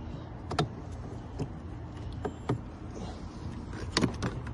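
Scattered sharp clicks and taps of small hard objects being handled, about half a dozen, the loudest pair near the end, over a steady low rumble.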